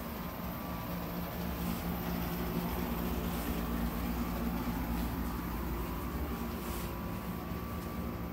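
Steady low mechanical hum from a running machine, with a faint steady higher tone and a few faint taps.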